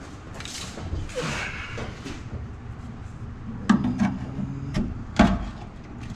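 Hands-on work at a pickup's rear wiring: two rustling scrapes, then a few sharp clicks and knocks of clips and hardware as the tail light harness is worked loose.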